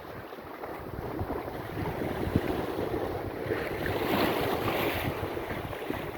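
Wind gusting across the microphone with the rushing wash of sea waves; the rush swells louder about four seconds in.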